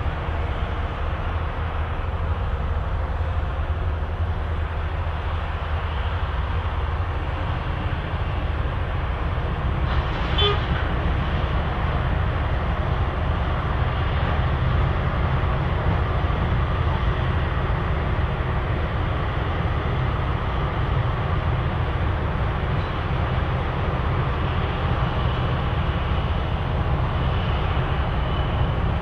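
Asphalt cold-milling machine and the tipper truck it loads running steadily, a heavy diesel-and-cutting-drum noise that is strongest low down, as the mill grinds up old runway asphalt. About ten seconds in comes a brief horn toot.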